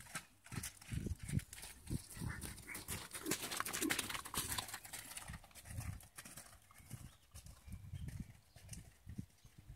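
Horse's hoofbeats on arena footing: dull thuds, about two a second, with a crackling hiss in the middle.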